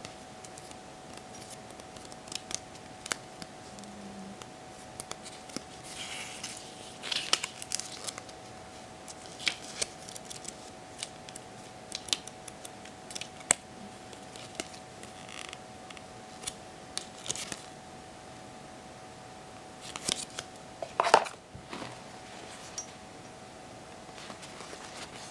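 Handling of a paper warranty booklet and watch packaging: scattered small clicks and brief paper rustles, the loudest a short clatter about 21 seconds in, over a faint steady hum.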